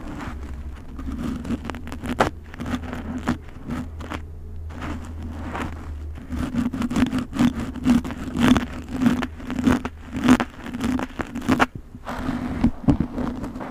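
Close-miked scratching and crackling of a thin pointed tool drawn through long hair, parting it in short repeated strokes. The strokes grow louder about halfway through and come about twice a second, over a low hum that stops around then.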